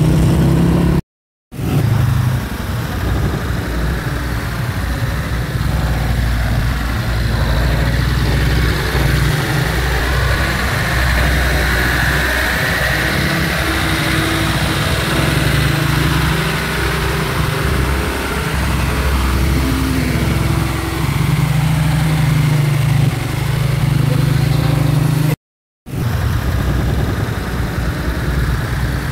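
Truck engine running at a steady low drone, with road noise above it. The sound cuts out completely twice for a moment, about a second in and near the end.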